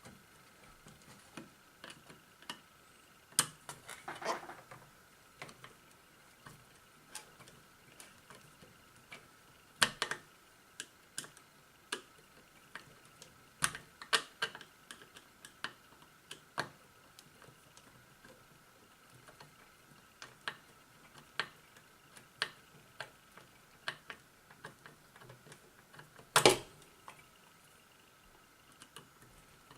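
Irregular clicks, taps and light knocks of small metal and plastic parts and tools being handled while a light fixture is taken apart, with the loudest knock near the end. A faint steady high hum runs underneath.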